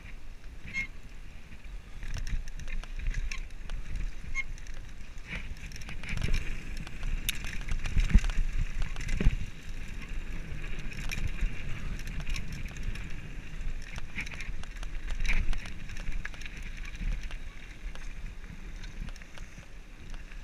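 Mountain bike riding fast down a dirt and gravel trail, picked up by a camera on the bike: tyre noise and wind rumble on the microphone, with frequent clicks and knocks as the bike rattles over bumps. It is loudest a third of the way in and quietens toward the end as the bike slows.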